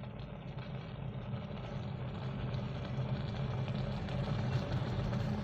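Ramen cooking in a shallow pan: a fine sizzling and bubbling over a steady low hum, growing gradually louder.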